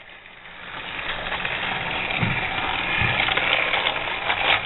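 Battery-powered Thomas TrackMaster toy train running on plastic track: a steady motor whir and wheel rattle that grows louder over the first second or so and then holds, with a couple of soft low thumps near the middle.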